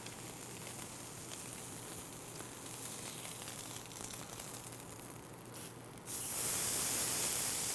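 Steak searing in a very hot enamelled cast-iron pan: a steady sizzle that suddenly grows louder about six seconds in, when the steak is flipped onto its other side. This is the brief final sear after sous-vide cooking.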